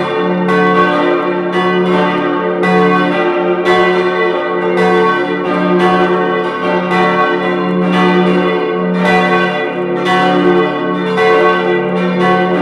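Full peal of four swinging church bells tuned d', f♯', a', b', ringing together. Strikes overlap about twice a second in an irregular order over a continuous hum that never dies away.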